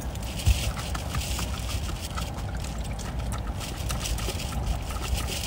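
Water poured from a plastic bottle into a plastic dog bowl, over a steady low rumble of wind on the microphone.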